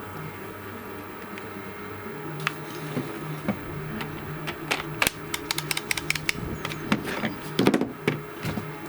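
A run of sharp clicks and knocks from cordless power tools and their batteries being handled: scattered at first, then a quick flurry, with the loudest knocks near the end. No grinder motor runs.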